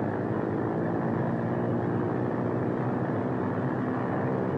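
The four radial engines of a Boeing B-17 bomber running up to full military power while the brakes are still held for a short-field takeoff: a steady, heavy multi-engine drone.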